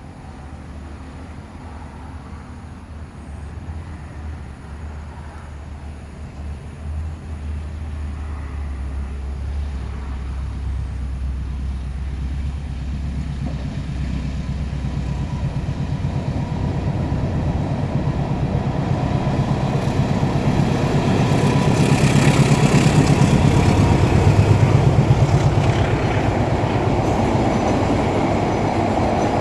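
A train approaching and passing close by. A low rumble grows steadily louder, and from about 21 s the loud rush and clatter of wheels on the rails takes over, loudest between about 22 and 26 seconds in.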